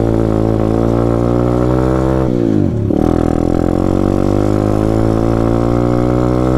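Taotao DB17 125cc four-stroke single-cylinder pit bike engine running hard while being ridden. The revs hold steady, drop sharply about two and a half seconds in, then climb back up.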